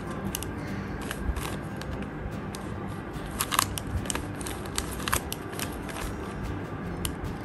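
Banana Cube twisty puzzle being turned by hand: irregular clicks and clacks as its plastic layers rotate, with a quick cluster of clicks about halfway through.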